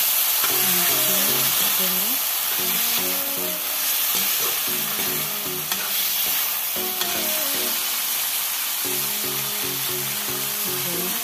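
Chopped offal and onions sizzling in a hot oiled pan, stirred and turned with a metal spatula. A melody of background music plays underneath.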